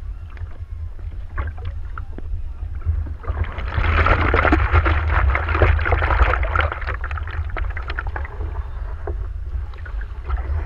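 Water lapping and splashing against a surfboard, with a steady low wind rumble on the microphone. From about three seconds in to about seven, a louder rush of water as the board is pushed through it.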